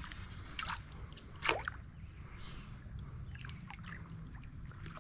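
Water splashing and dripping, with a sharper splash about half a second in and a louder one about a second and a half in, then a patter of small drips, over a steady low rumble of moving water.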